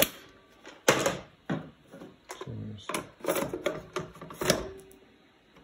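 Hard plastic clacks and knocks, about eight of them at irregular spacing, as 8-track tape cartridges are handled and changed in the player.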